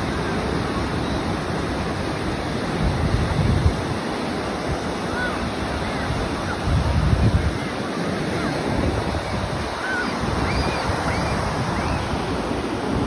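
Ocean surf breaking and washing up a sandy beach, a steady rushing, with wind rumbling on the microphone that swells louder twice, about three and seven seconds in.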